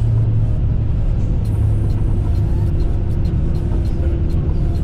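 Steady low rumble of an Airbus A320-family airliner heard inside the cockpit as it rolls out on the runway after touchdown: engine and wheel noise with a steady hum and faint irregular ticks.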